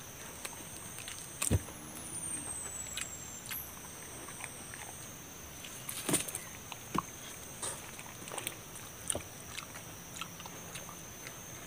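Hands tearing apart a whole roasted chicken, with scattered short crackles and ticks of skin and meat pulling off and a knock about a second and a half in. A steady faint high-pitched tone runs underneath.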